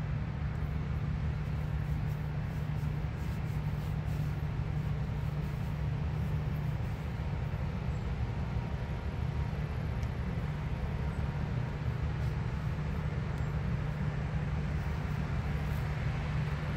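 New Holland combine harvester running steadily while harvesting wheat: an even low drone of its engine and threshing machinery.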